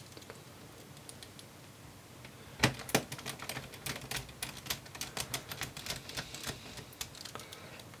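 Small Phillips screwdriver driving the battery's retaining screws into a laptop chassis. Two sharp clicks come about two and a half seconds in, followed by several seconds of quick, light clicking as the screws are turned home.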